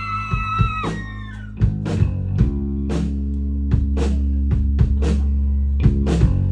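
Rock band playing live: a held high note cuts off about a second in, then drums hit over a sustained heavy bass and guitar as the song gets going.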